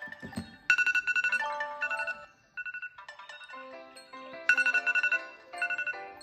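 Smartphone alarm tone ringing: a bright, chime-like melody of quick notes, its phrase starting over about every four seconds. A short low thud comes right at the start.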